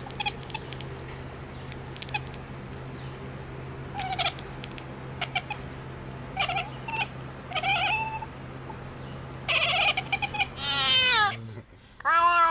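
A cat meowing: short meows a few seconds apart, then louder, longer meows near the end, the last one sliding down in pitch. A steady low hum runs underneath and stops shortly before the end.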